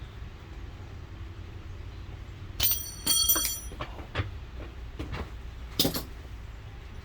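Metal hand tools clanking together, the first strikes ringing briefly, then a few lighter clicks and knocks, over a steady low rumble.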